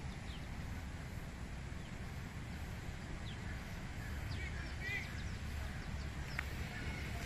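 Outdoor ambience: a steady low rumble with a few faint, short bird chirps scattered through, most of them bunched a little past the middle.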